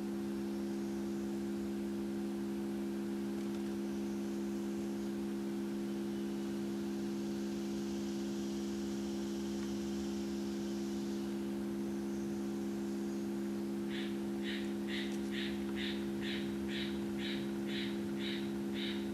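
Steady electronic hum of a 68 Hz tone from a tone generator, heard mostly as its overtones, the way a small speaker plays a low tone. Near the end a regular series of short high chirps begins, about two a second.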